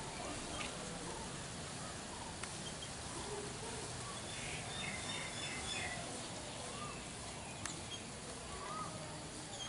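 Steady outdoor background hiss with faint, scattered bird calls: short chirps, with a cluster of higher twittering about halfway through. Two sharp clicks stand out, one in the first third and one near the end.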